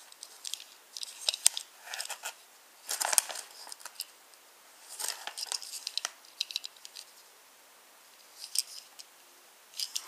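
Fingers handling a tiny plastic toy caboose and its clear plastic wrapping: scattered bouts of light clicks and crinkles, with short quiet gaps between them.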